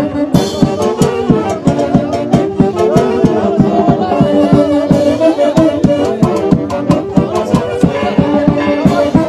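Festival band music: wind or brass instruments playing a held melody over a quick, steady beat.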